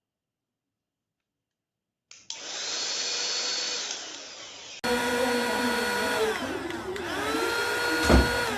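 Silence for about two seconds, then a cordless mini vacuum cleaner's motor running with a steady high whine that drops in pitch near four seconds. About five seconds in, an abrupt cut brings the vacuum running again with a wavering pitch, with a sharp thump near the end.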